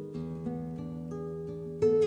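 Instrumental background music of plucked string notes, held and changing every half second or so, with a louder chord struck near the end.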